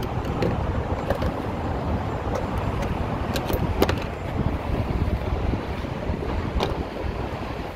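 Steady low rumble of wind buffeting the microphone, with a few light clicks of handling noise.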